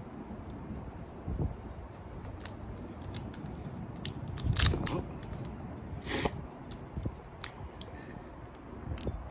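Copper motor windings of a refrigerator compressor being cut and pulled loose by hand: scattered small clicks and snips, with two sharper rasping noises about four and a half and six seconds in.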